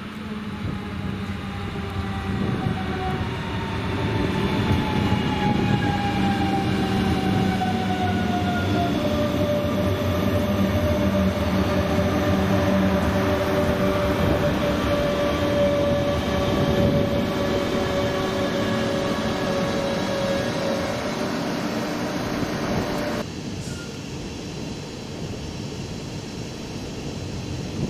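Class 425 electric multiple unit running past close by. Its traction motors whine, falling in pitch as it slows, then holding a steady tone over the rumble of the wheels. The sound cuts off suddenly about 23 seconds in, leaving a quieter low background rumble.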